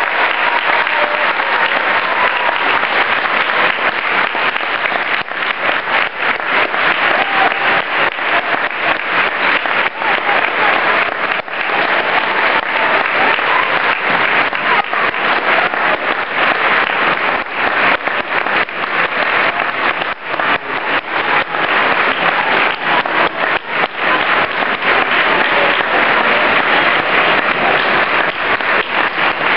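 Large crowd applauding steadily, a dense wash of many hands clapping, with scattered voices in it.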